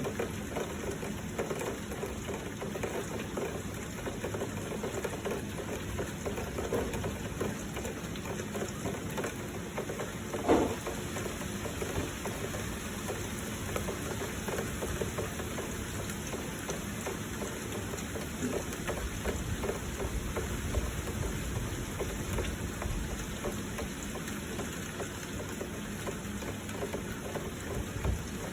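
Heavy rain falling steadily, with flowing water. A single brief knock stands out about ten seconds in.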